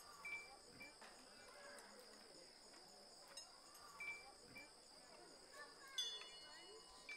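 Faint outdoor ambience of crickets trilling steadily and high, with a few short high chirps in pairs. About six seconds in, a brief metallic chime rings out.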